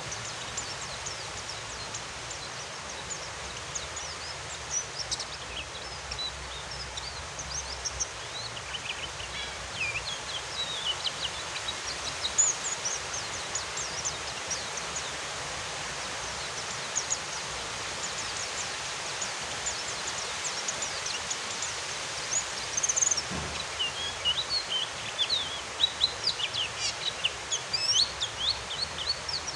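Steady hiss of rain with white-eyes (pleci) twittering over it: quick, high chirps in clusters, busiest in the last few seconds.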